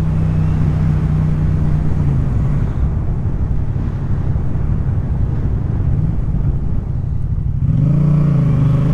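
Yamaha MT-07 parallel-twin motorcycle engine running steadily, with road and wind noise. Near the end the revs rise as it accelerates.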